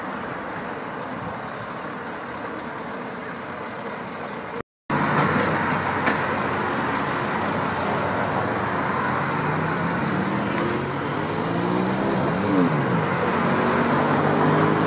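Road traffic passing close by: engine and tyre noise, louder from about five seconds in. In the second half, engine notes slide up and down in pitch as vehicles go past.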